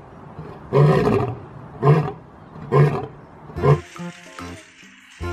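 Lion roaring in a series of short roars, about one a second, each shorter than the last. Music starts about four seconds in.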